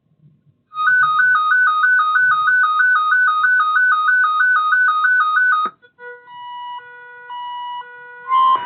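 Weather alert radios sounding their alert alarms for an incoming weather alert. A loud warbling two-tone beep trills about four times a second for roughly five seconds and cuts off suddenly. A sequence of steady electronic beeps at several different pitches follows, then a single steady tone near the end.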